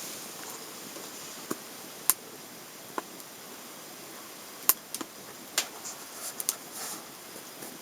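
Wood fire burning in a small stove: irregular sharp crackles and pops over a steady hiss, two of them louder, about two seconds and about four and a half seconds in.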